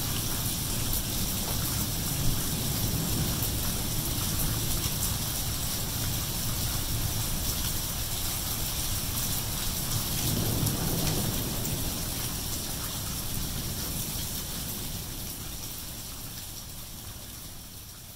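Steady heavy rain falling on wet pavement, parked cars and tree leaves. A low rumble swells briefly about ten seconds in, and the rain fades out over the last few seconds.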